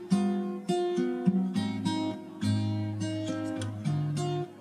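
Background music: acoustic guitar strumming and plucking chords.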